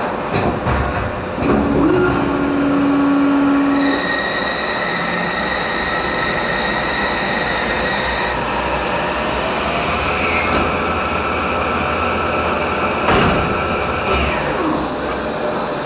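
EMCOTURN E65 CNC lathe machining brass bar stock: a steady rush of running machinery with whining tones that shift in pitch every few seconds. There are clicks in the first second or so and a sharp knock about thirteen seconds in.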